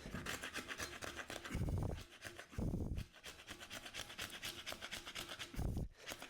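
Rapid, rhythmic back-and-forth scrubbing on an old hot water cylinder as it is cleaned up, many short rasping strokes a second. A few brief low thuds sound in the middle and near the end.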